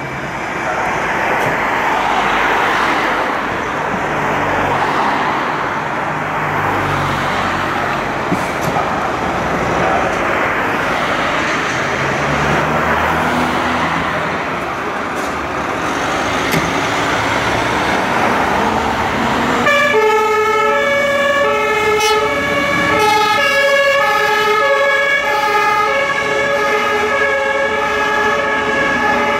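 Diesel engines of fire vehicles running as they pull out of the station, a Mercedes Sprinter command van passing. About twenty seconds in, a German fire-service two-tone horn starts up, alternating steadily between a high and a low tone.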